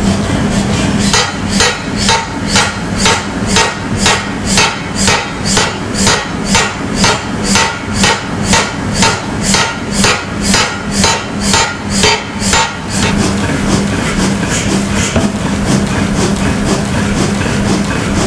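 Pneumatic power hammer forging a red-hot steel ring held on a saddle tool, striking in a steady rhythm of about two blows a second. Past the middle the blows turn lighter and more irregular, over a steady low hum.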